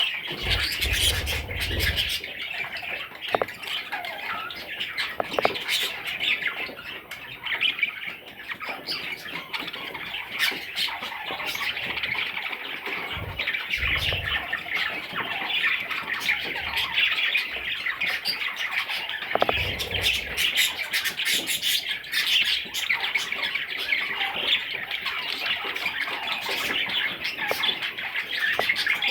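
Pet budgerigars chattering continuously with quick chirps and squawks, with a few soft low thumps near the start, in the middle and about two-thirds of the way through.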